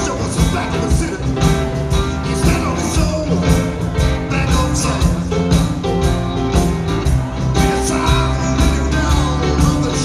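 Live rock band playing with a steady beat: electric guitars, bass, keyboards and drum kit, with a male lead vocal singing over them.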